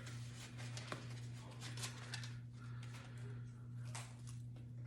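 Faint handling noises, a few light clicks and rustles, as bike parts are fitted by hand, over a steady low hum.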